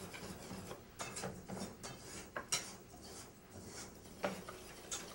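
A whisk mixing pancake batter in a stainless steel bowl, clinking and scraping against the metal in irregular strokes, with knife taps on a cutting board among them.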